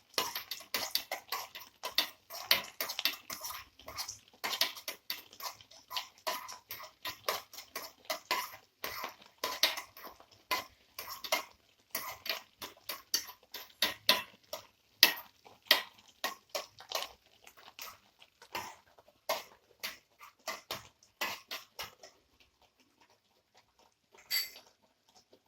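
Metal spoon scraping and clicking against a pan while stirring: a quick, irregular run of scrapes and knocks that thins out to a few scattered clicks near the end.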